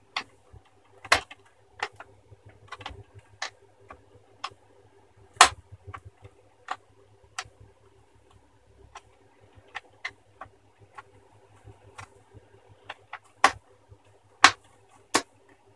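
Plastic screen bezel of a Sony Vaio laptop being pried off with a pry tool: irregular sharp clicks and snaps as the clips and glued edge give way. There are a few louder cracks, about a second in, midway and near the end.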